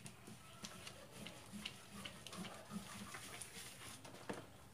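Faint, scattered clicks and taps of plastic dishware being handled and wiped at a kitchen sink, with one sharper knock near the end.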